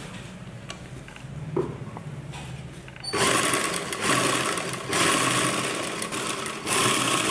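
Sewing machine stitching round a neckline seam through the top fabric and lining. It starts about three seconds in, after a quieter stretch with a few faint clicks, and runs steadily with two brief pauses.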